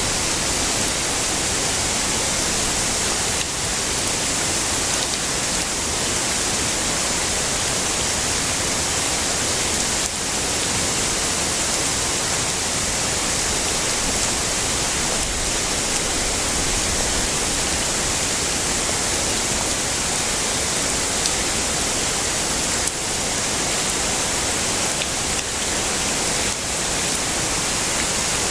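Heavy rain falling steadily as an even, unbroken hiss, strongest in the high end.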